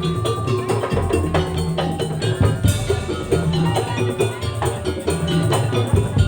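Madurese tong-tong (daul) percussion ensemble playing an instrumental langgam: a steady, repeating drum beat with wooden knocks under a tuned melody.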